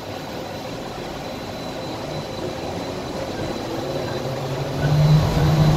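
Skylink people-mover car running along its guideway, heard from inside the cabin: a steady running noise that grows louder. From about five seconds in, a motor whine comes in and rises in pitch as the train picks up speed.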